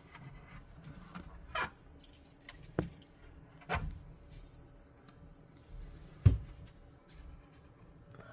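A 3D-printed PLA flexible fidget being handled, making scattered plastic clicks and light knocks, with a sharper knock about six seconds in.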